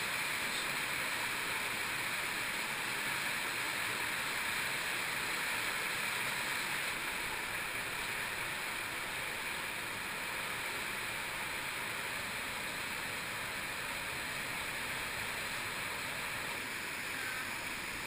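An underground cave stream rushing steadily over rock, a constant even sound of running water.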